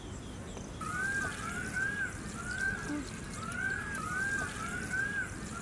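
A bird calling repeatedly outdoors: short rising-then-falling whistled calls, roughly two a second, starting about a second in.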